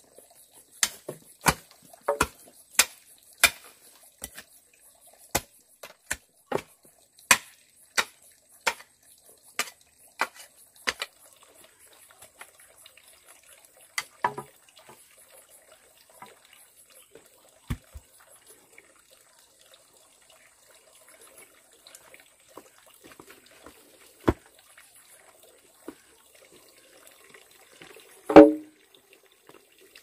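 A run of sharp knocks or taps, about one and a half a second and uneven, for roughly the first eleven seconds, then a few scattered ones and one louder, lower thump near the end.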